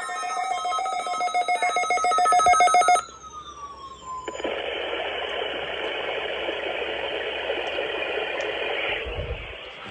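Electronic emergency-alert test signals from several weather radio and FM receivers playing at once: overlapping steady tones and falling glides with a rapid ringing pulse, which stop abruptly about three seconds in. About a second later a steady rushing hiss begins and runs until it cuts off near the end.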